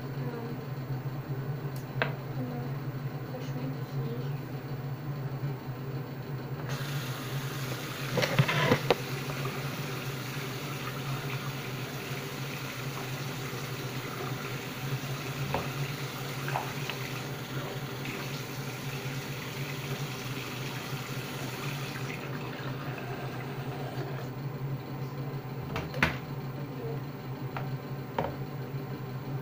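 A sink tap runs for about fifteen seconds, starting about seven seconds in, with a few clicks and knocks scattered through. A steady low hum runs underneath.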